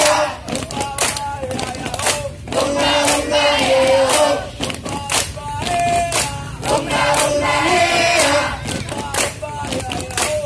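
A group of scouts, young men and women together, singing a yel-yel in unison with held notes, punctuated by sharp hand claps.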